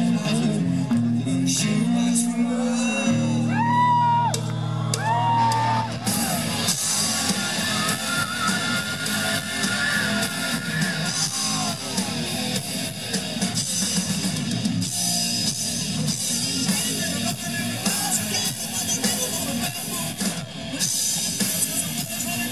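Hard-rock band playing live through a concert PA: a singer's sliding notes over a low, stepping guitar-and-bass riff, then the full band with drums and cymbals from about six seconds in.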